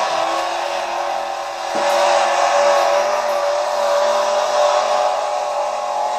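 Modified pulling tractor's engine running at full throttle under load during a pull. It holds a steady high pitch and gets louder about two seconds in.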